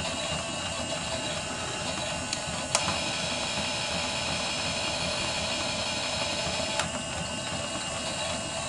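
Toy washing machine's small electric motor and plastic gears running with a steady mechanical whirr, with two sharp clicks about four seconds apart.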